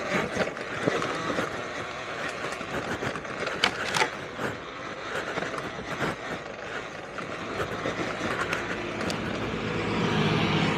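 Talaria Sting R electric dirt bike ridden over a rough mountain trail: steady tyre, chain and rattle noise with scattered sharp knocks, and a low motor hum that comes in over the last couple of seconds.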